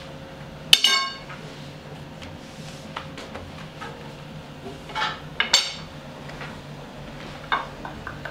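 Two sharp clinks of metal that ring on briefly, about a second in and about five and a half seconds in, with lighter knocks and taps between, over a steady faint hum.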